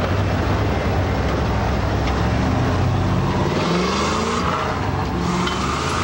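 Motor vehicle engine running steadily, its pitch rising for a moment a few seconds in.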